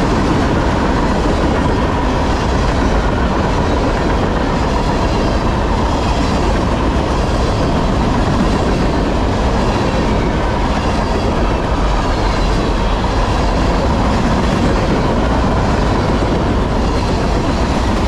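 Empty trash-container freight cars rolling past at speed: a loud, steady rumble and clatter of steel wheels on rail, with a thin steady ringing tone running through it.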